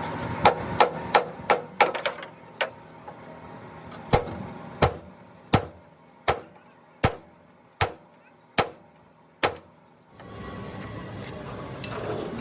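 Hammer blows on the truck's metal bodywork: a quick run of about six strikes, a single one, then after a pause a steady series of eight strikes a little under a second apart.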